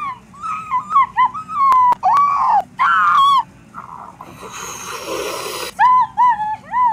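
A string of short, high-pitched squeaky whimpering cries from a cartoon dog character. About four seconds in they give way to roughly two seconds of hissing, the sound effect of the character inflating, and then the squeaky cries resume near the end.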